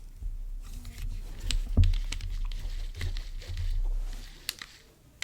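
Handling noise from a small baitcasting reel turned over in the hands: scattered sharp clicks and light rubbing, a dozen or so irregular clicks, the loudest about two seconds in.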